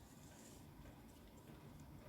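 Near silence: room tone, with a couple of very faint ticks.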